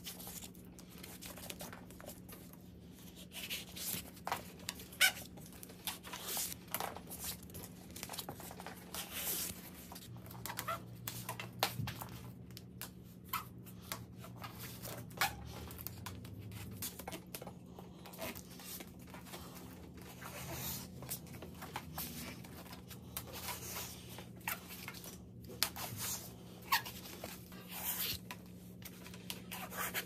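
Scattered rustling, tearing and crinkling handling noises with many small clicks, over a steady low hum: hands at work on a road bike build.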